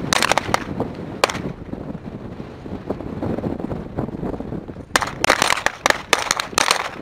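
M9 9 mm pistols firing on a range. A few shots come close together at the start and a single one follows about a second in. A quick string of shots from several shooters runs from about five seconds in.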